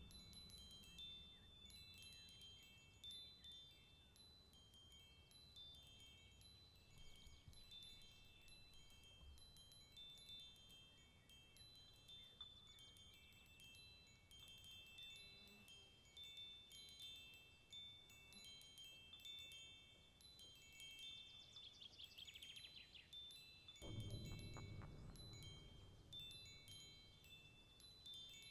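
Faint, high chime tones tinkling in an irregular, overlapping pattern. Near the end a lower, fuller sound joins in under them.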